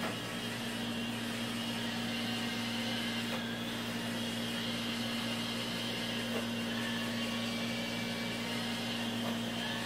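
Steady hum of a running electric motor, with a thin high whine above it.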